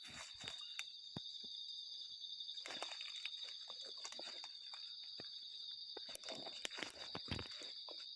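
Steady high-pitched insect drone, with scattered clicks and crackles of movement through dry undergrowth.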